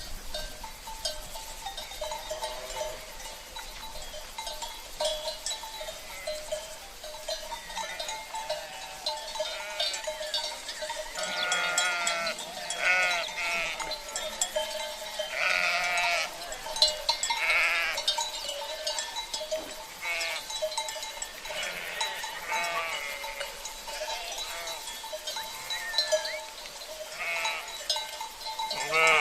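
Sheep bleating, several wavering calls one after another and overlapping from about ten seconds in, over the steady clinking and ringing of livestock bells (cencerros).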